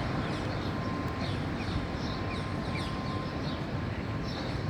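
Birds chirping over and over in short, falling calls above a steady low rumble of city traffic, with a faint steady tone in the background.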